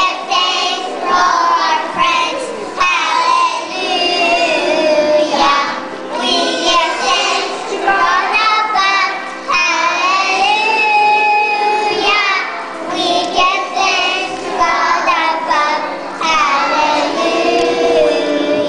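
A class of kindergarten children singing a song together in unison.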